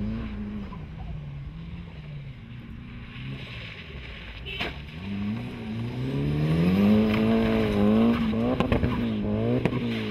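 Mitsubishi Lancer Evolution rally car's turbocharged four-cylinder engine revving hard and backing off as it is driven through a bend, its pitch climbing from about halfway and swinging up and down, with a few sharp cracks near the end.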